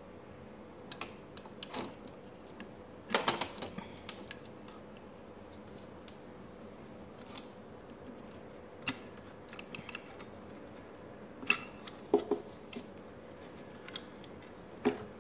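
Scattered clicks and light taps of fingers handling wires and components on an open powered-speaker amplifier circuit board, with a quick cluster of rattling clicks about three seconds in. A faint steady hum sits underneath.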